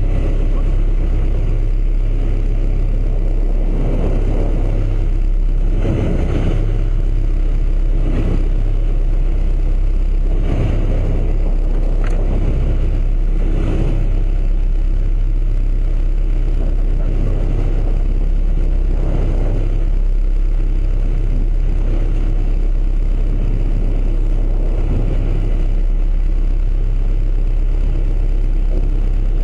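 A fishing boat's engine running at a steady low hum, with a rush of noise that swells every few seconds.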